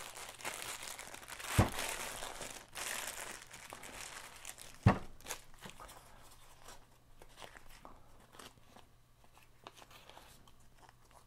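A thin plastic bag crinkling as it is worked off a lathe chuck, then oily anti-rust (VCI) wrapping paper crinkling and tearing as it is peeled away, quieter and more scattered in the second half. Two sharp knocks stand out, one about a second and a half in and one about five seconds in.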